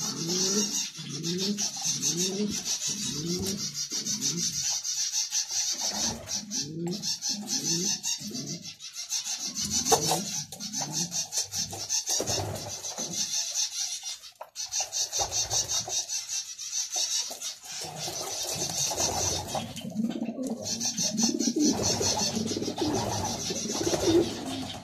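Domestic racing pigeons cooing. A rhythmic run of short rising coos comes about one and a half a second for the first few seconds, then more scattered coos follow, over a steady high-pitched buzzing hiss.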